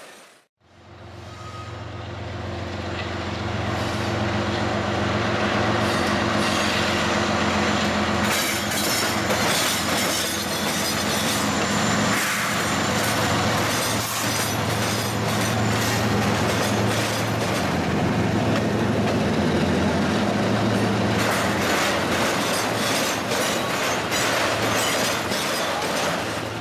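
Diesel-electric freight locomotive passing close by with its engine running in a steady low drone, followed by autorack cars rolling past with a rhythmic clickety-clack of wheels over the rail joints. The sound starts after a sudden cut about half a second in.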